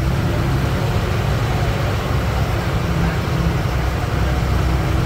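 A TNSTC bus's diesel engine running steadily under way, heard from inside the cabin as a low drone over road and body noise, with a faint steady whine above it.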